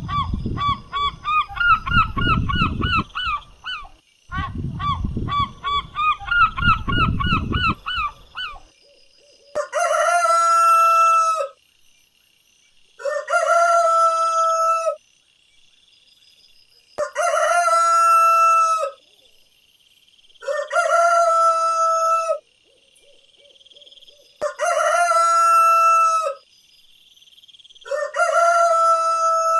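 Geese honking rapidly in two bouts over a low rumble, then a rooster crowing six times, each crow about two seconds long with short gaps between.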